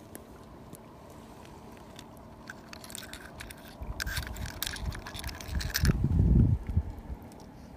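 Seashells clicking and crunching against one another as a hand picks through a pile of shells and lifts one out, in clusters of sharp clicks from about two and a half seconds in. Near the end there is a short low rumble.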